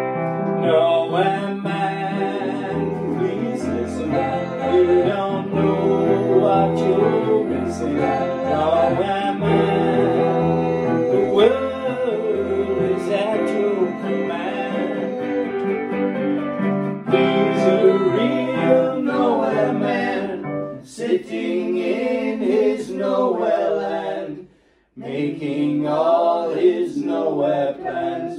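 Acoustic guitar and keyboard played together with a man singing along. The music drops out briefly about 25 seconds in, then starts again.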